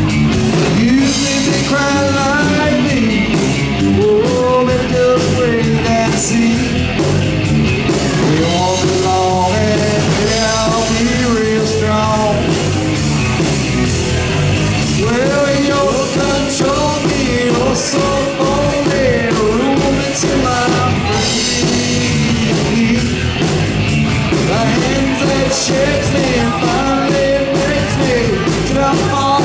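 Live rock band playing loud and steady: Stratocaster-style electric guitar, electric bass and drum kit, with a male lead vocal sung over them.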